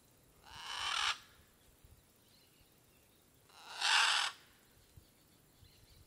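Two harsh, raspy scarlet macaw squawks about three seconds apart. Each swells for about half a second and then cuts off suddenly.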